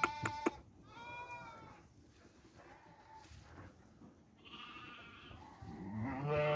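Sheep bleating: several calls, the loudest near the end. A few sharp clicks at the very start.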